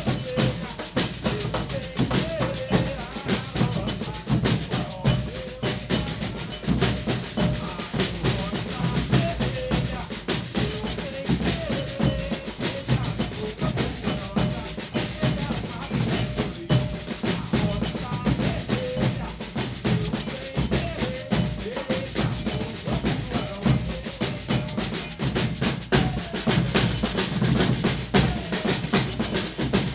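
Brazilian percussion ensemble drumming a dense, steady rhythm without a break.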